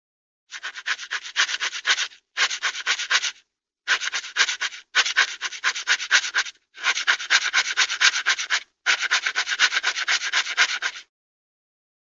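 Cartoon sound effect of rapid, scratchy rasping strokes, about nine a second, in six bursts separated by short silent gaps.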